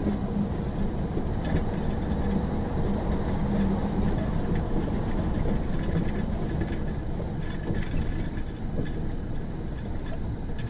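Steady rumble of a moving vehicle's engine and tyres on the road, heard from inside its cab, with a few faint clicks.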